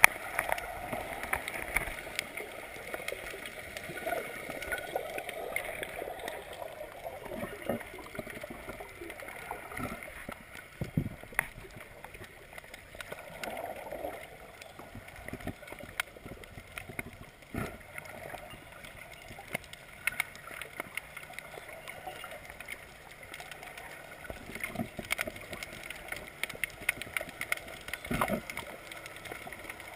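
Water gurgling and sloshing around a camera recording underwater while snorkelling, with scattered clicks and a few dull knocks.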